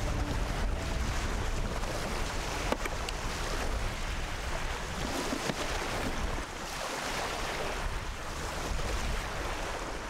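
Steady wind buffeting the microphone, with a rushing outdoor background, and a single sharp click a little under three seconds in.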